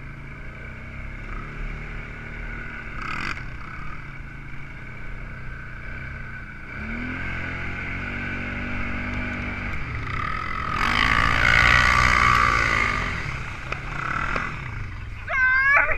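Quad (ATV) engine running under the rider as it is driven along, its pitch rising and falling with the throttle. A louder rushing noise swells for a couple of seconds past the middle.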